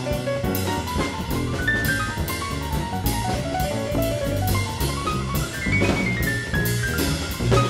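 Background jazz music: a drum kit keeping a steady beat under a melody of quick note runs, with one long descending run about six seconds in.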